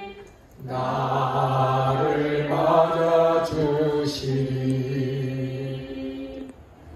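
Slow worship singing: voices hold long notes across a few phrases, with a short break about half a second in, and fade near the end.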